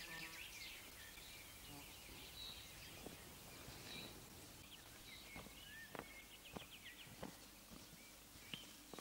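Faint birdsong from small birds: scattered short high chirps and a quick trill about five seconds in, over quiet outdoor ambience. A few soft clicks sound in the second half.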